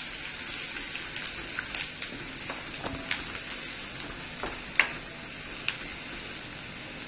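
Chopped ginger and garlic sizzling in hot oil in a metal wok, with a steady high hiss, while a wooden spoon stirs them and taps the pan now and then, the sharpest tap about five seconds in.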